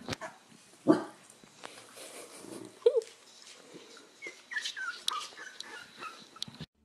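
Corgi puppies whimpering: a short yelp about three seconds in, then a run of high, falling squeaks. A loud bump about a second in.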